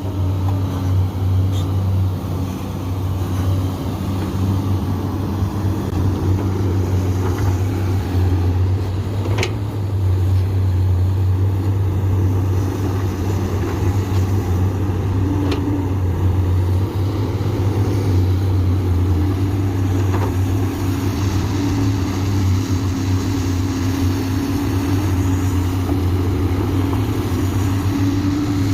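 Komatsu PC200 hydraulic excavator's diesel engine running steadily under working load with a deep drone. A few sharp knocks come through over it.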